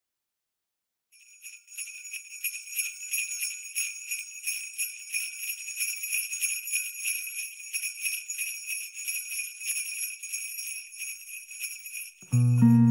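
Sleigh bells shaken in a steady rhythm, starting about a second in. Near the end a guitar comes in loudly.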